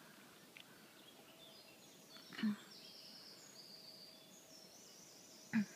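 Outdoor background with faint, high bird chirps starting about halfway. There are two brief low sounds, one about two and a half seconds in and one near the end.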